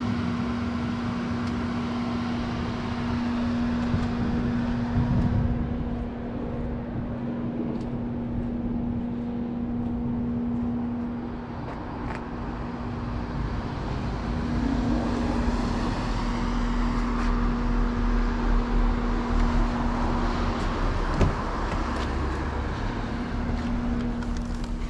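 Renault Mégane 4 RS 280's 1.8-litre turbocharged four-cylinder running through a catless exhaust while driving, a steady drone over road rumble.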